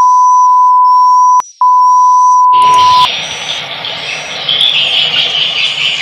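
A loud, steady beep tone that cuts out briefly about a second and a half in and stops after about three seconds. From about two and a half seconds, a steady noisy whir follows: the modified mist-making machine running.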